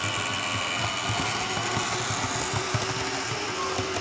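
Model train passing on the track: the steady whine of its small electric motor over an uneven low rattle of wheels on the rails.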